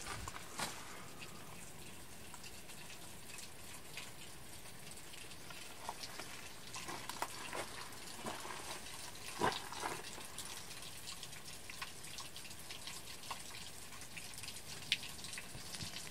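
Water dripping off a rock overhang onto wet ground: scattered, irregular drops over a faint steady wash of running water.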